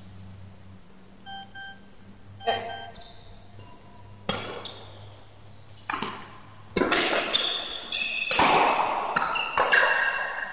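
Badminton shoes squeaking on the court mat with sharp hits and footfalls during a rally, a few squeaks at first, then a busier, louder run of squeaks and hits in the second half.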